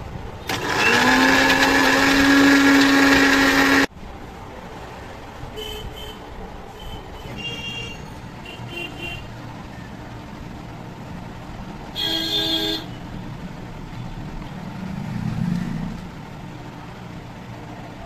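Road traffic with a vehicle horn sounding one long steady blast of about three seconds that cuts off sharply, then a second short honk later, with faint lighter beeps between.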